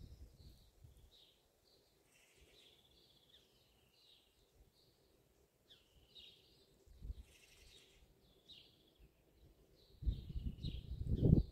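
Several songbirds singing in the dawn chorus, with short chirps and warbled phrases throughout. A low rumbling noise comes in briefly about seven seconds in, then loud about ten seconds in, drowning out the birdsong near the end.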